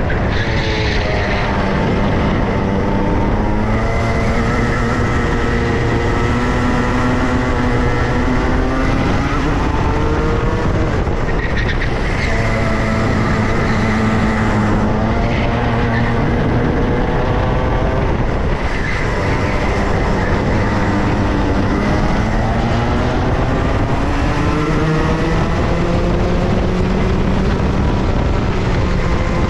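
Go-kart engine heard from onboard, its revs climbing along the straights and dropping off into the corners several times over, with a steady rush of wind and road noise.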